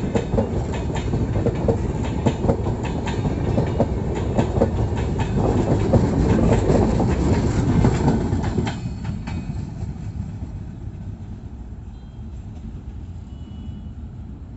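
A string of LHB passenger coaches passing at speed, wheels clattering over the rails with rapid clicks. The clatter stops suddenly about nine seconds in as the last coach goes by, leaving a quieter rumble that fades as the train moves away.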